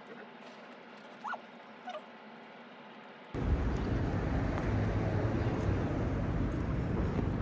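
A pet whimpering: a few short, faint, high whines over a quiet room. About halfway through it cuts off suddenly to steady city street noise with a low traffic rumble.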